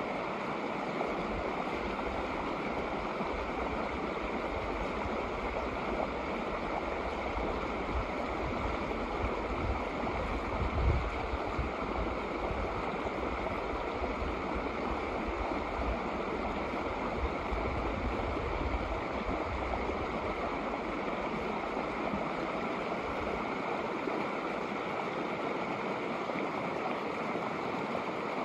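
Snowmelt mountain creek flowing steadily over rocks in a shallow riffle, an even rushing babble. A low rumble swells under it through the middle, briefly loudest about eleven seconds in.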